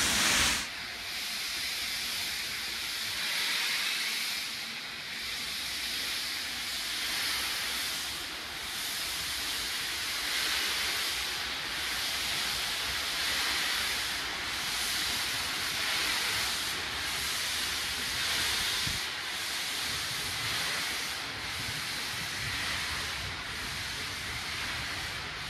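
Steam-hauled train pulling away, its coaches rolling past close by: a steady hiss-like rush that dips every two to three seconds, the dips coming closer together as the train gathers speed, with more low rumble near the end.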